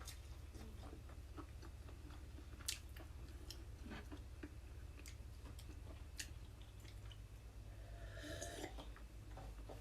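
Soft, close-up chewing and mouth sounds of eating bread with corn cream, with scattered small clicks and one sharper tap a little under three seconds in.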